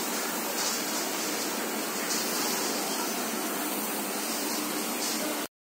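Steady, even machine noise from a running six-roller yarn starching and finishing machine, which stops abruptly about five and a half seconds in.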